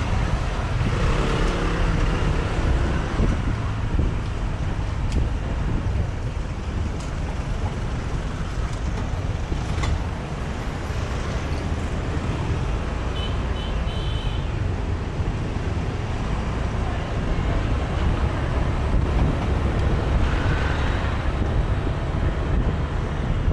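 Motorbike engines and street traffic in a crowded lane at walking pace: a steady low rumble.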